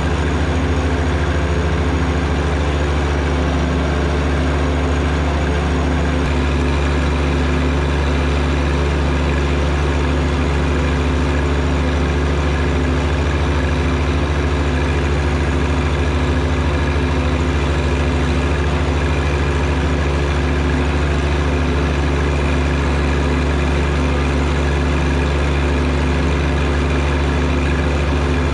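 John Deere compact utility tractor's diesel engine running at a steady, constant speed while the tractor is driven slowly, heard close up from the front of the tractor.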